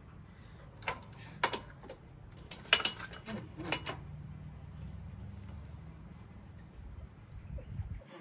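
Wrench clinking and clanking against the steel of a motorcycle's rear axle and suspension, several sharp metallic hits in the first four seconds, with a low steady rumble that cuts off suddenly near the end.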